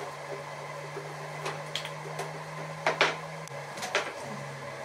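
Knocks and clanks of steel being handled at a bench vise over a steady low hum, the loudest pair of knocks about three seconds in.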